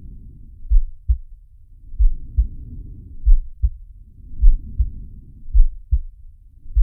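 Heartbeat and breathing sound effect. A slow, deep double-thump heartbeat sounds about once a second, six beats in all, under soft breaths that swell and fade every couple of seconds.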